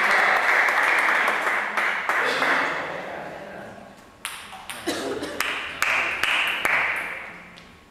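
Spectators applauding, fading out over the first three seconds; from about four seconds in come a handful of sharp taps and a short second round of clapping that fades before the end.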